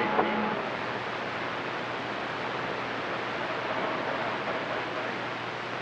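CB radio receiver hiss: steady band static on an open channel 28, with faint brief whistles from other signals near the start and in the middle.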